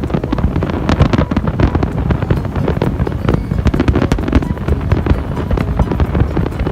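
Fireworks going off in rapid succession, a dense run of bangs and crackles over a low rumble, with wind buffeting the microphone.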